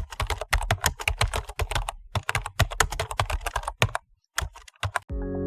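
Rapid, irregular keyboard typing clicks, pausing briefly about four seconds in; music comes in just before the end.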